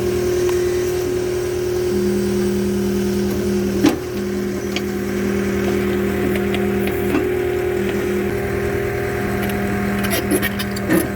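Powered post hole digger's engine running steadily under load as the auger bores into the ground, with a sharp knock about four seconds in and clattering knocks near the end as the auger strikes rock.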